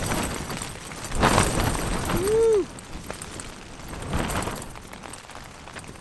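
Gale-force wind gusts battering a Hilleberg tent, heard from inside as the fabric shakes and flaps in surges. The strongest gust comes about a second in and lasts over a second, and a smaller one follows near four seconds.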